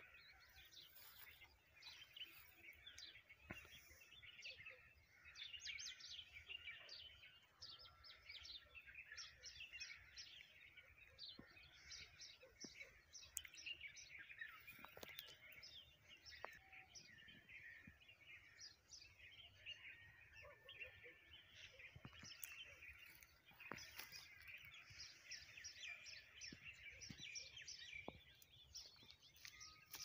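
Several songbirds chirping and trilling together in a faint, continuous morning chorus of short overlapping calls, over a low steady background noise.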